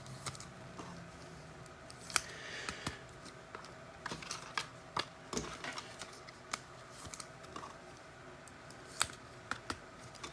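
Trading cards and plastic card holders being handled on a table: scattered light clicks and taps at irregular intervals, with a soft rustle about two seconds in.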